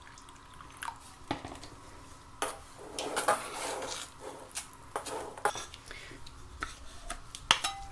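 A mixing tool scraping and knocking against a container as alabaster (building gypsum) and putty are stirred with water into a paste. The scrapes and clinks come irregularly, with sharper knocks about two and a half seconds in and near the end.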